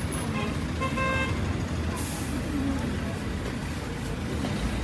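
Steady low background rumble, with a short pitched toot about a second in.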